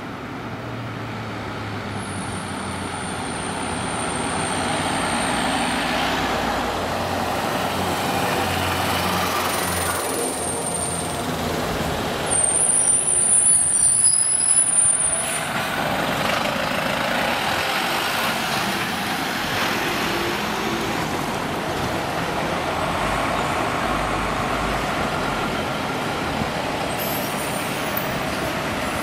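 A convoy of fire engines and other emergency vehicles driving past one after another, their diesel engines and tyres swelling and fading as each goes by, louder for about two seconds near the middle.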